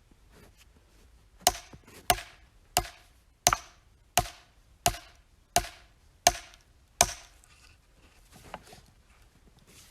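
Oak firewood being split: nine sharp chopping blows into the wood in a steady rhythm, a little faster than one a second, starting about a second and a half in and stopping a few seconds before the end.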